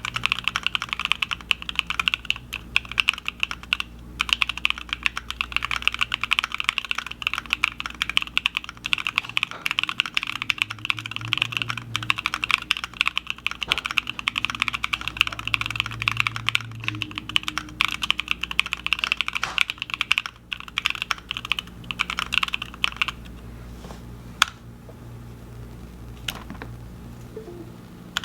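IV Works AV3x Soyamilk mechanical keyboard with stock Epsilon switches, GeekArk black-on-white keycaps and an aluminium plate with plate foam, typed on quickly and continuously. The typing stops about 23 seconds in, leaving a few single keystrokes near the end.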